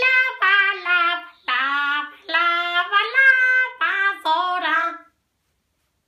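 A high-pitched puppet voice singing a children's song in short held phrases, with no accompaniment, breaking off about five seconds in.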